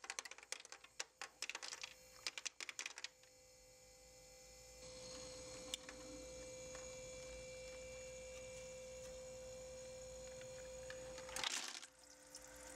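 Portable ice maker at work: a quick run of light clicks and clatters as ice cubes drop off the prongs, then a steady hum from its motor for several seconds, with a short rattling burst near the end.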